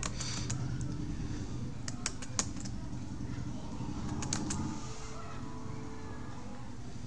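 A few computer keyboard key presses, a small cluster about two seconds in and another a little after four seconds, over a steady low hum.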